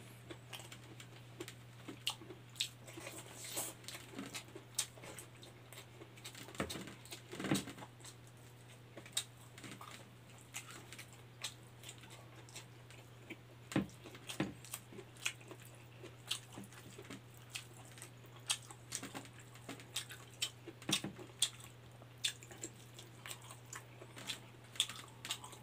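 Close-up chewing and mouth clicks of a person eating rice and dried fish with his fingers, with many small irregular crackles and ticks as fingers work the food on a banana leaf. A steady low hum runs underneath.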